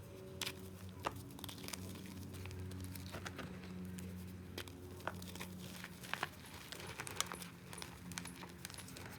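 Balls of reformed gym chalk being crushed: irregular sharp crunches and crackles as the hard chalk snaps and crumbles.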